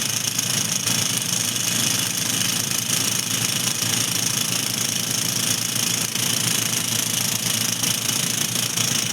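Heavy drill machine digging: its engine running steadily under load with a dense, rapid knocking.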